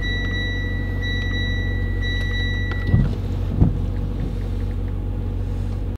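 Steady low hum of a car heard from inside the cabin. A high steady tone sounds over it for the first three seconds, and two thumps come a little after three seconds in.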